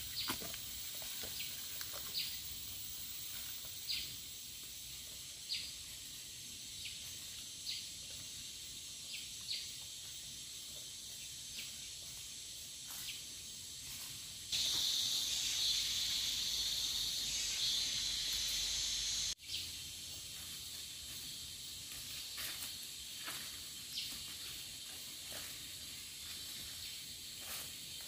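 Forest insects making a steady high hiss, with soft footsteps on the forest floor every second or two. About halfway in, a louder, high-pitched insect drone starts, holds for about five seconds and cuts off suddenly.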